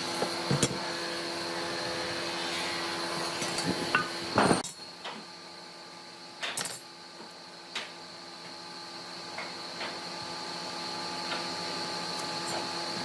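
Scattered knocks and clatters of tools and wood being handled over a steady hum; the low part of the hum drops away about four and a half seconds in.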